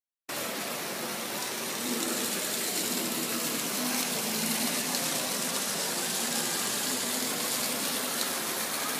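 Indoor artificial rock waterfall pouring into a shallow pool: a steady, even rush and splash of falling water.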